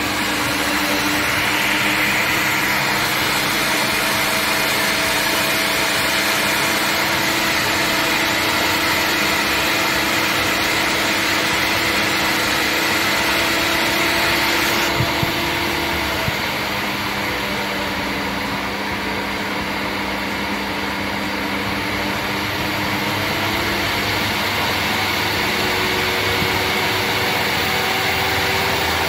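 Table saw motor running steadily at speed, spinning a disc of thick paper fitted in place of the saw blade, free-running with nothing being cut.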